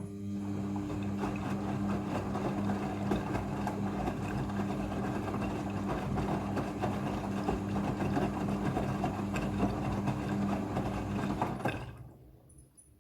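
Front-loading washing machine running during its rinse cycle, a steady hum with swishing noise that starts suddenly and stops about twelve seconds in.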